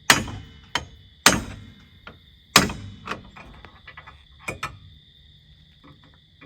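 Hammer blows on a seized wheel bearing stuck in the backing plate, being driven out: three hard metal-on-metal strikes about a second and a quarter apart, each ringing, with a few lighter knocks between and after.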